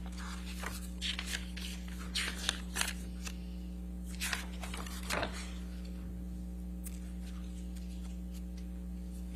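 Paper pages rustling and being turned in a run of short rustles over the first half, over a steady low hum; after that only the hum remains.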